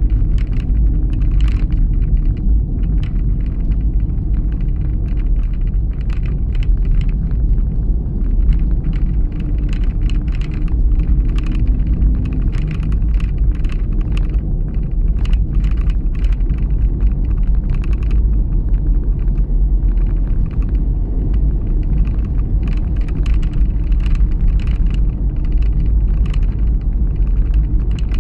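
Car driving along a narrow, rough country road, heard from inside the cabin: a steady low rumble of engine and tyres with a faint hum, dotted with frequent small clicks and ticks.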